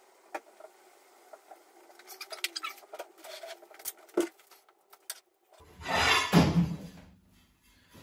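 Clicks, knocks and rustling as a wrapped pack of ceramic floor tiles is set down on a kitchen worktop and opened, with a loud burst of rustling and tearing wrapping a little past the middle as a tile is pulled out.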